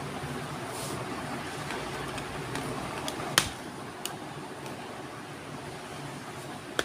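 Handling noise from a phone camera being moved about, over a steady low hum in the room. One sharp click comes about three and a half seconds in, with a couple of fainter clicks later.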